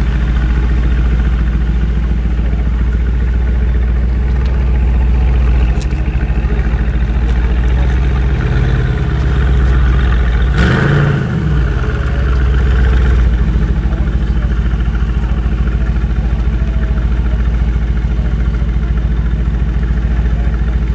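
Mercedes-AMG GT R's twin-turbo V8 idling at its exhaust, with one brief throttle blip about halfway through.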